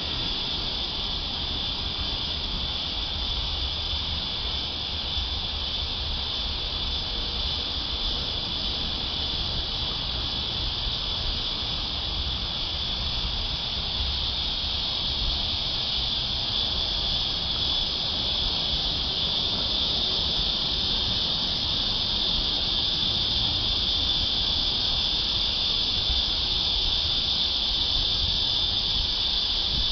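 Cicadas singing in a steady chorus: a continuous high-pitched buzz over a low rumble, swelling slightly towards the end.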